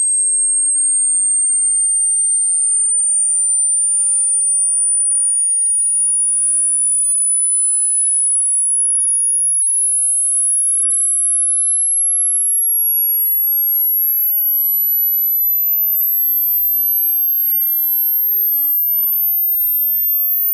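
A single pure sine-wave test tone, very high-pitched, climbing slowly and steadily in small steps at an even loudness: the upper stretch of a hearing-test frequency sweep from low to high, where many listeners lose the tone.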